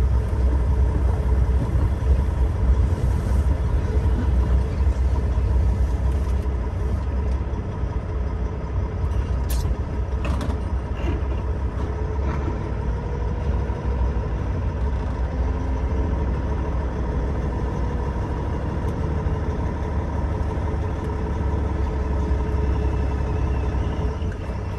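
Detroit diesel engine of a 500-horsepower cabover truck running at low speed as the truck rolls slowly, heard inside the cab: a steady low rumble with a faint steady whine.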